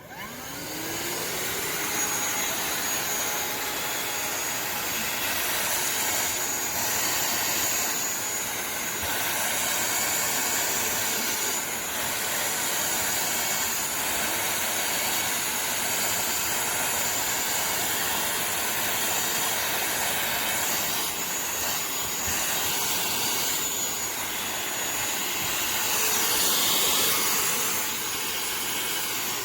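Shark vacuum cleaner switched on, its motor rising in pitch as it spins up, then running steadily with a loud suction hiss, and starting to wind down at the very end as it is switched off.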